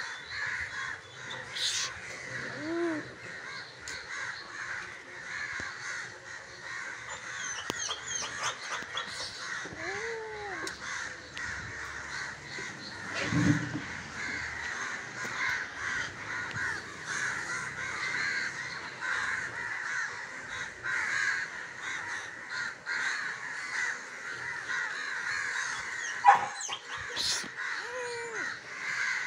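A large flock of crows cawing all together, a dense unbroken chorus of overlapping caws. A brief louder bump about halfway through and a sharp click near the end stand out above it.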